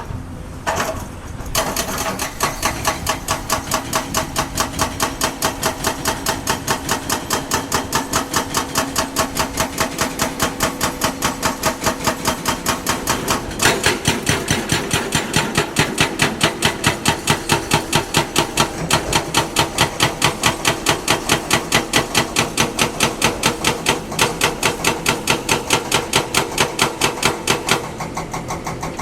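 Excavator working with a rapid, even clatter of sharp knocks, about four to five a second, over its running engine; the knocks begin about a second and a half in and stop just before the end.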